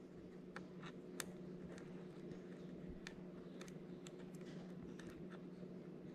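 Faint, irregular light ticks and clicks of a small screwdriver turning the retaining screw that holds an M.2 NVMe SSD down in a laptop, over a faint steady hum.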